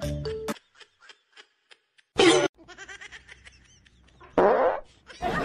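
Fart sounds: a short loud blast about two seconds in, a second one near the end, and a longer rasping one starting just before the end.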